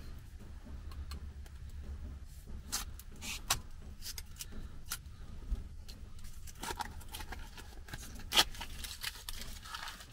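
Foil and wire cage being worked off the neck of a sparkling wine bottle: scattered small crinkles and clicks, with one sharper click about eight seconds in, over a steady low hum.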